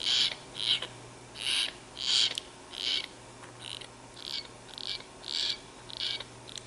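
Young hill myna begging to be fed: short harsh rasping calls, about eleven in a row, roughly one every half second.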